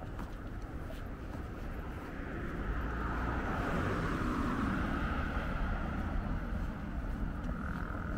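City road traffic noise, with a passing vehicle swelling louder from about three seconds in.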